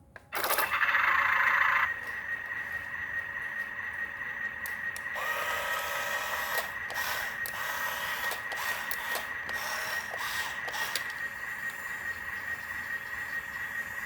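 Small electric motor of a toy RC truck running with a steady high whine, louder and noisier in its first second or so.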